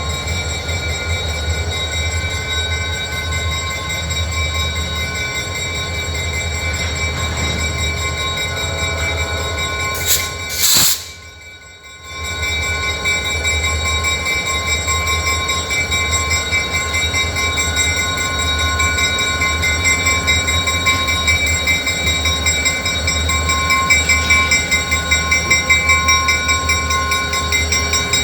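EMD SD40-2 diesel-electric locomotive's 16-cylinder two-stroke engine working as it pulls away: a steady low throb with steady high whining tones. About ten seconds in there is a short loud burst, the sound drops away for about a second and then comes back. Toward the end a pulsing beat grows louder.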